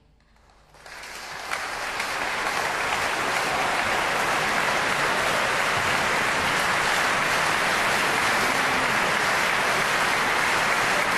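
Audience applause rising out of near silence about a second in and settling into dense, steady clapping.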